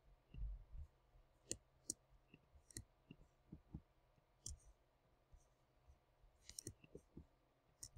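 Faint, irregular clicks of a computer mouse and keyboard in use, with a soft low thump about half a second in.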